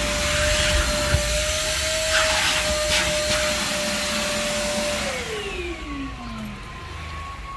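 Vacuum cleaner motor running with a steady whine and rushing air. About five seconds in it is switched off, and its pitch falls as the motor spins down.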